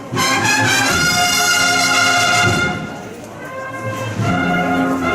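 Brass band music: long held brass chords with full, bright notes. The sound drops back briefly about halfway through, then swells again.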